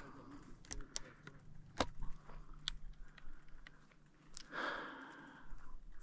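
Scattered light clicks and knocks of handling noise, with a brief scuffing rustle about four and a half seconds in.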